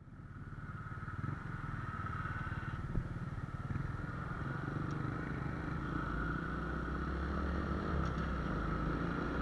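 Honda Wave 125X motorcycle's single-cylinder four-stroke engine running steadily while the bike is ridden, fading in over the first couple of seconds.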